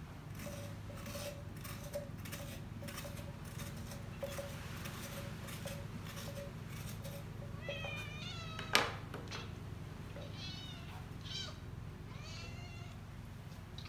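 A small cat meowing several times in short, high, wavering mews, starting about halfway through, with a sharp knock among the first mews. Before the mews, a run of light scratchy strokes from the coconut being worked open.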